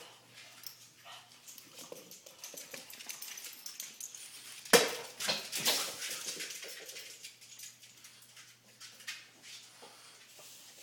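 French bulldogs scuffling and running on a hardwood floor, with many small clicks and knocks. A sharp thump about five seconds in is the loudest sound.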